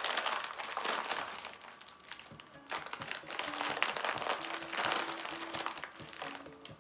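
Plastic packaging crinkling in bursts as hands dig pom-poms and candy canes out of their cellophane bags. A quiet tune of held notes plays underneath from about halfway.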